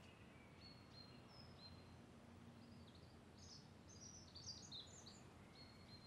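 Near silence with faint bird chirps, a few more of them about four to five seconds in.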